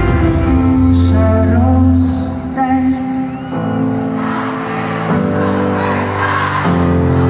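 Live pop-rock band playing in an arena, with guitar and a male singer, heard through the hall's echo. About halfway through, crowd cheering and singing along rises over the music.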